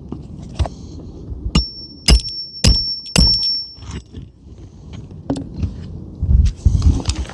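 Hammer striking a roof snake nailing tool to drive a roofing nail under a shingle: four sharp metal blows about half a second apart, each leaving a high ring. Duller knocks and scuffing follow near the end.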